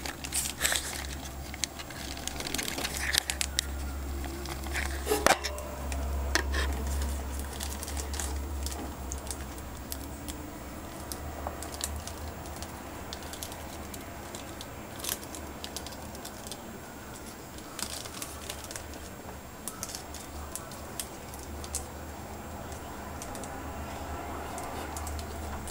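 Tissue crinkling and tearing as a hamster pulls at it: scattered dry crackles and rustles, busiest in the first seven seconds, then sparser.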